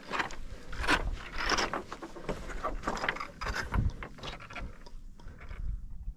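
Hiking footsteps crunching and clattering over loose, platy rock scree, stones shifting and knocking together underfoot in an uneven rhythm. The steps get quieter about five seconds in.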